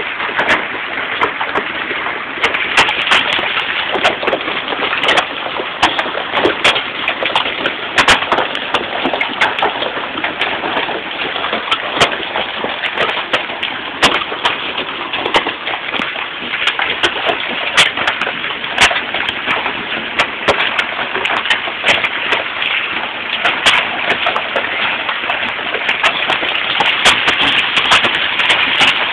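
Hail coming down hard: a dense, steady patter of hailstones, with many sharp clicks of single stones striking a hard surface.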